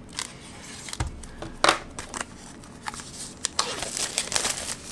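A craft knife slitting the plastic shrink wrap on a CD jewel case: a series of sharp clicks and scrapes, the loudest about a second and a half in. Near the end, the film rustles as it is peeled off the case.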